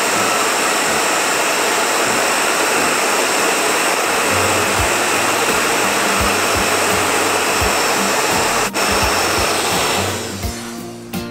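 Handheld hair dryer blowing steadily on high, a whooshing rush of air with a faint high whine, then switched off and winding down about ten seconds in. A single sharp click sounds shortly before it stops.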